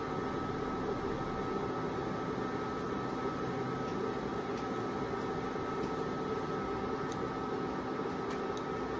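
Induction cooktop running at medium heat under a covered wok, a steady hum and hiss with a faint constant whine from its fan and coil. A few faint ticks come near the end.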